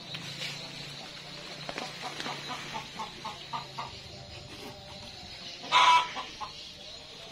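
Chickens clucking, with a run of short, evenly spaced clucks in the middle and one loud, short cry just before the end.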